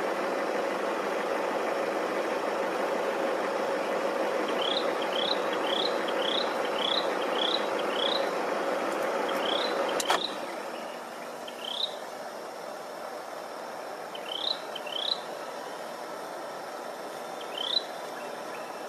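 Vehicle engines idling in a steady hum, which drops to a quieter hiss after a sharp click about halfway through. Short rising chirps come about twice a second for a few seconds, then now and then.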